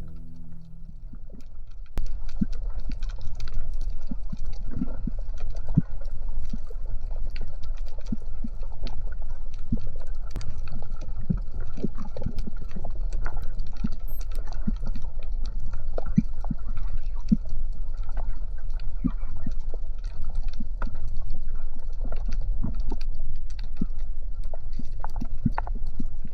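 Underwater sound from a camera held below the surface: a steady low water rumble with many scattered sharp clicks and crackles. It swells about two seconds in.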